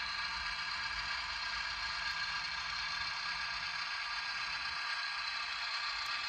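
HO-scale Sperry rail inspection car running steadily along the model track: the even whir of its small electric motor and gearing, with a light rattle of wheels on rail.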